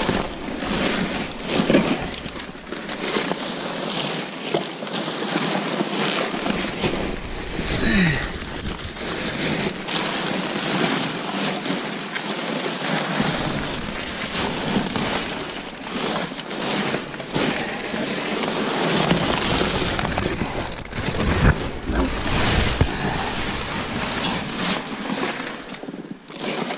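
Loose plastic wrap and bags crinkling and rustling without pause as gloved hands dig through them and the cardboard boxes beneath.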